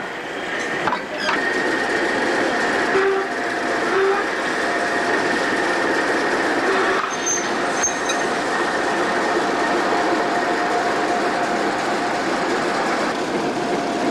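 Loose-coupled freight wagons and a brake van rolling slowly over yard track, steel wheels rumbling on the rails with a long steady squeal.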